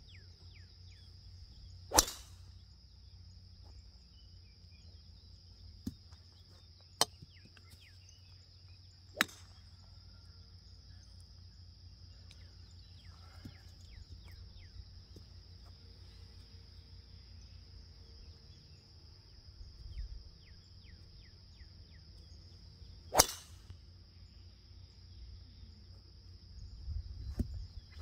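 A driver striking golf balls on a range: two loud sharp cracks, about two seconds in and again past twenty seconds, with three fainter cracks of shots in between. A steady high-pitched drone and faint bird chirps run underneath.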